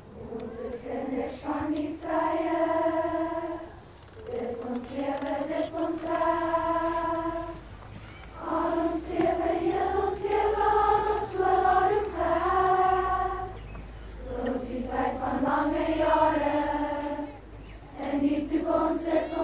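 A large choir of schoolgirls singing together in unison, in long held phrases separated by brief breaths.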